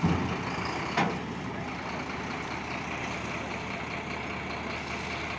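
Heavy vehicle engine running steadily, with a thump at the start and a sharp knock about a second in.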